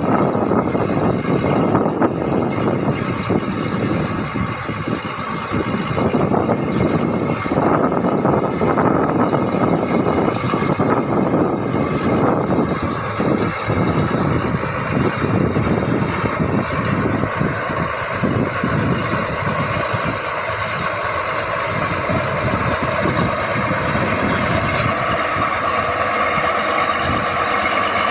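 Bulldozer's diesel engine running steadily while it works.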